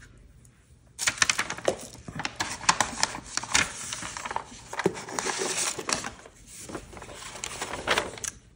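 Paper and clear plastic stamp sheets being handled and shuffled on a craft desk: rustling and crinkling with many small clicks and taps, starting about a second in.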